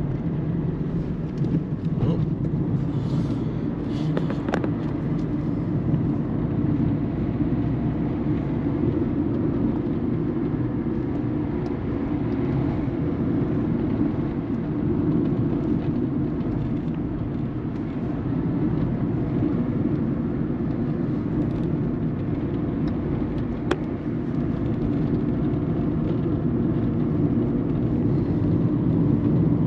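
Peugeot 207 1.4 turbo diesel driving on the road, heard from inside the cabin: steady engine and tyre rumble with only a few faint ticks. There is no front suspension clunk, the sway bar links having just been replaced.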